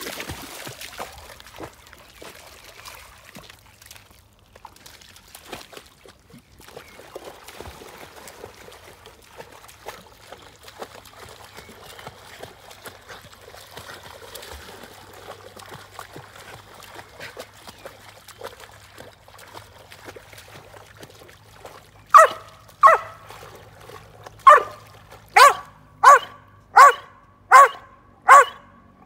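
Appenzeller Sennenhund splashing as it runs and wades through shallow water. Near the end it barks loudly about eight times in quick succession, a little under a second apart.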